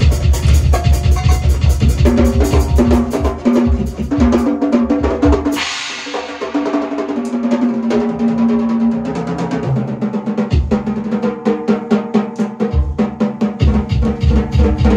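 Large acoustic drum kit played fast, with rapid bass-drum strokes and busy snare and tom hits, and a cymbal crash about five and a half seconds in. The bass drum drops out for several seconds after the crash and comes back near the end, all over recorded music with sustained pitched notes.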